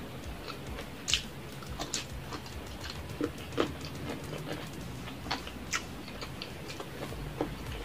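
Close-miked chewing of a mouthful of stir-fried rice noodles (pancit bihon), with wet mouth clicks and lip smacks. A few sharper smacks stand out, the loudest about a second in and at about three and a half seconds.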